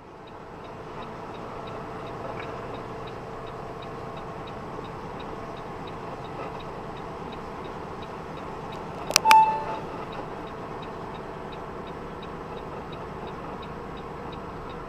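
Steady engine and road noise inside a truck cab while driving, with a faint, fast, regular ticking. About nine seconds in there is a sharp click with a short beep, the loudest moment.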